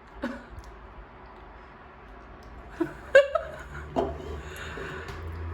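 A few short non-word vocal sounds from a child: one just after the start, then a cluster around three seconds in and another about four seconds in. They come as he tastes a piece of raw garlic and reacts to its heat.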